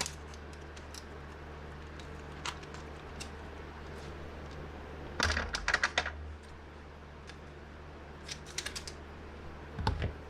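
Strips of tape being handled and pressed onto shattered tablet glass, giving sharp clicks and crackles: a loud run about five seconds in and a shorter one near nine seconds, over a steady low hum.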